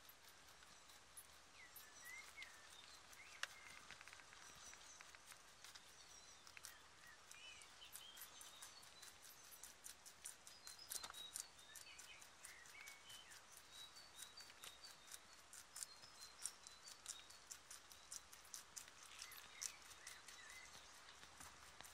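Rabbit chewing carrot tops close to the microphone: a rapid run of faint crunchy clicks, sparse at first and growing dense after the first several seconds.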